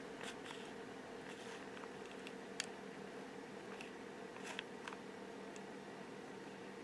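Steady low hum with a handful of faint, scattered clicks and light handling noises as a hot glue gun lays a bead of glue on the back of a small ornament.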